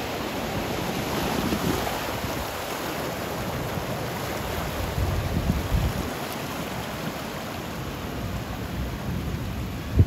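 Ocean surf washing and foaming over rocks in a rocky cove, a steady rush with uneven low surges. Wind buffets the microphone in gusts.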